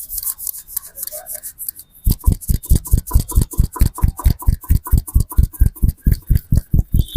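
A barber's hands rubbing briskly over hair and scalp. About two seconds in, the hands switch to fast, rhythmic percussive massage strikes, about five a second.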